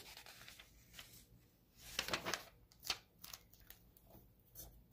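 Catalog page being turned by hand: short rustles and flaps of the paper, the loudest about two seconds in, with a few lighter rubs and taps after.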